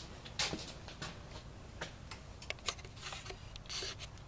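Handling noise: irregular light clicks and short rustles as the camera is moved and zoomed back from the target. No shot is fired.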